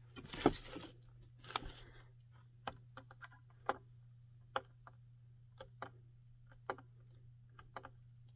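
Packing tape being picked at and peeled off the glossy plastic body of an air fryer. There are two short ripping rasps in the first two seconds, then scattered light clicks of fingernails and tape against the plastic.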